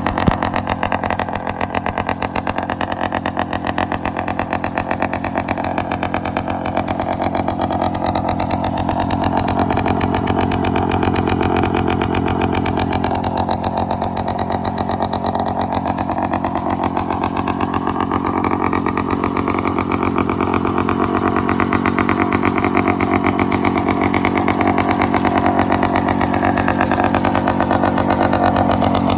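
Hodaka Ace 100 single-cylinder two-stroke engine running steadily in a mini bike.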